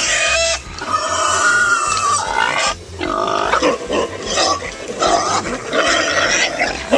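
A pig squealing loudly, about five long harsh squeals with short breaks between them.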